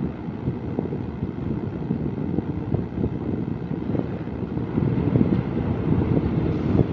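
Wind buffeting the microphone held out of a coach window, over the steady low rumble of a moving passenger train.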